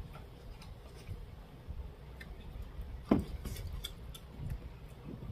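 A person eating: chewing with faint clicks and taps of utensils against dishes, and one sharper clack about three seconds in.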